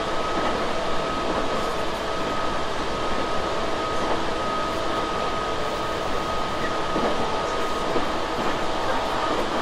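Tobu 6050 series electric train running at speed, heard from inside the passenger car: a steady rolling noise with a thin, high, steady whine over it.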